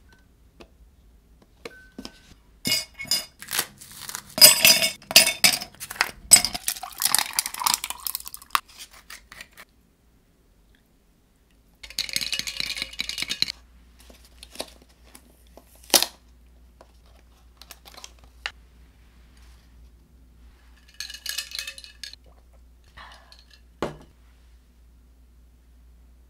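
Paper bakery bags rustling and crinkling as donuts are unpacked, in several bursts, loudest about three to eight seconds in. Light clinks and knocks of a plate and containers on the table come in between, with a sharp knock near the end.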